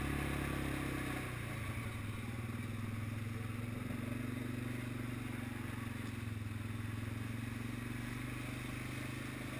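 ATV engine running steadily at low speed; its note drops about a second in and then holds.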